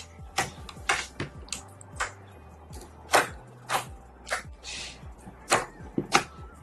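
Glossy clear orange slime squished and pressed flat under fingers, making irregular wet clicks and pops, roughly one or two a second.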